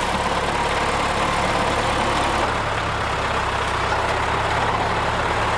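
Tractor engine running steadily, on the tractor of a trunk-shaker olive harvester.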